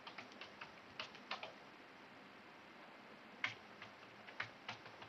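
Faint computer keyboard typing: two short runs of keystrokes, the first right at the start and the second about three and a half seconds in.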